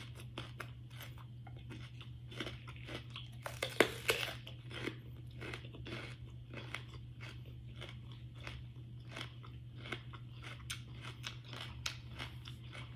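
Raw kohlrabi being bitten and chewed close to the microphone: crisp crunching strokes, with a louder bite about four seconds in, then steady crunchy chewing. A low steady hum runs underneath.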